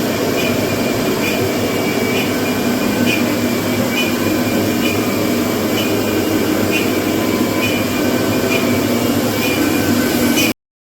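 Figtek CNC router running a cut: a steady machine noise of spindle and cutter, with a faint tick about once a second. It cuts off suddenly near the end.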